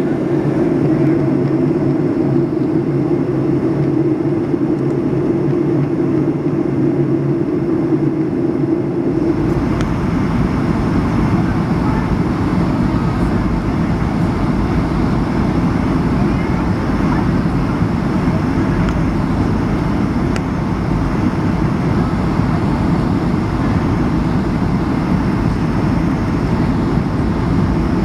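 Steady jet engine and airflow noise heard inside the cabin of a Boeing 757 on descent, a hum with a few steady low tones. About nine seconds in it changes suddenly to a louder, rougher rumble of engines and wind on low approach with the flaps extended.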